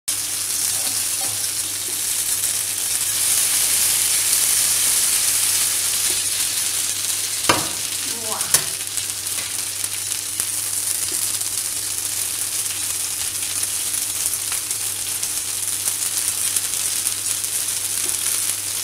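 Paneer tikka skewers (paneer, tomato, onion and capsicum on wooden sticks) sizzling steadily as they fry in butter in a nonstick pan. About seven and a half seconds in come two sharp clicks a second apart, as the skewers are moved in the pan.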